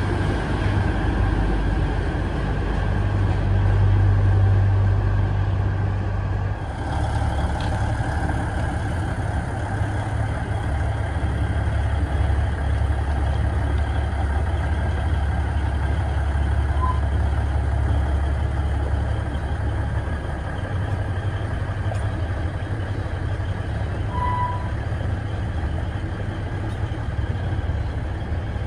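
Narrow-gauge diesel shunting locomotive running with a steady low engine drone. A short high tone sounds twice in the second half.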